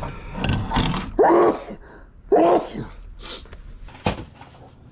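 Two short grunts from a man, about one second and two and a half seconds in, with scattered handling noise between them and a single sharp knock near the end.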